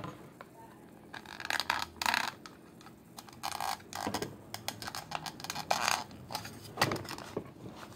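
Hard plastic clicking, tapping and scraping as a Megatron figure's feet are handled and pressed against its plastic Decepticon display base. Irregular short scrapes, with a sharper click near the end.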